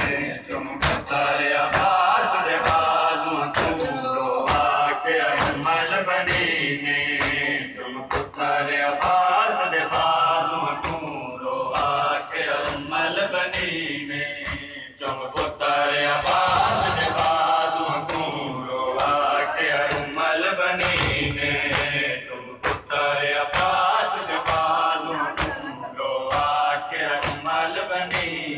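Shia matam: a group of men chanting a mourning lament (noha) while the crowd beats their chests with open hands, the slaps landing in a steady beat about one to two a second over the singing.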